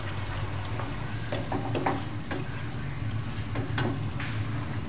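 Beef and masala sizzling as they are fried down in a non-stick pot, a wooden spoon stirring and scraping against the pot with a dozen or so short knocks, over a steady low hum. This is the bhunai stage, frying the meat with the spices and tomatoes until the masala cooks.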